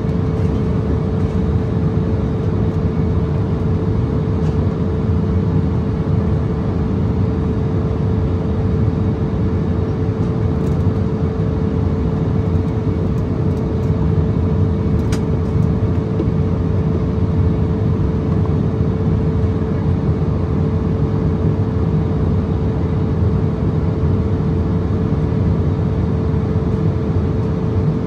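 Cabin noise inside an Embraer ERJ-170 in flight: a steady, even rush of airflow and the jet's GE CF34 turbofan engines, with a constant low hum running through it.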